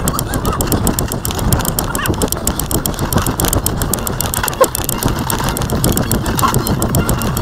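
Running footsteps thudding on a dirt path in a steady rhythm, with wind rumbling on the microphone and the camera jolting with each stride.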